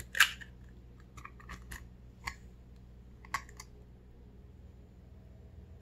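An egg cracked open on the rim of a plastic mixing bowl: one sharp crack just after the start, then a few softer clicks of shell as it is pulled apart and emptied onto the flour.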